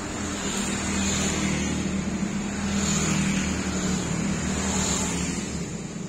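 National F560A1 industrial ceiling fan starting up: a steady motor hum under the rush of air from the blades. It grows louder about a second in as the fan picks up speed.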